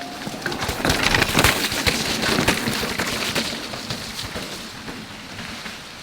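Canyon Spectral:ON electric mountain bike rolling down a rough, wet trail: tyres crunching over roots and debris and the bike rattling, with a dense clatter of knocks loudest in the first half, then easing to a steadier rolling hiss.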